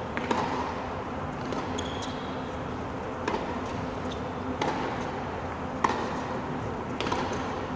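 Tennis ball struck by rackets and bouncing on a hard indoor court during a rally, a sharp hit every second or so, echoing in a large empty hall.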